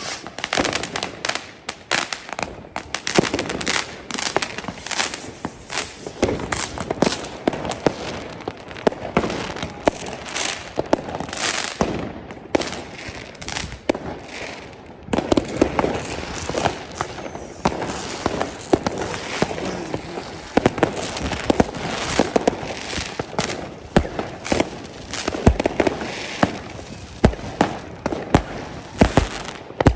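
New Year's Eve fireworks and firecrackers going off in a near-continuous barrage of sharp bangs and crackles, many overlapping, with a few deeper booms near the end.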